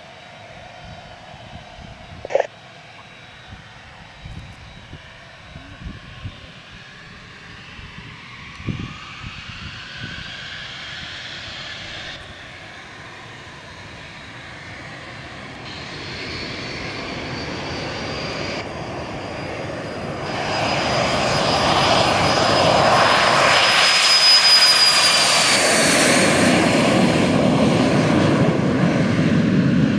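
Twin turbofan engines of a Cessna Citation CJ2 business jet. A faint whine at first grows much louder about two-thirds of the way through, with a high steady whistle over the running engines. Near the end the whistle falls in pitch, leaving a lower rumble.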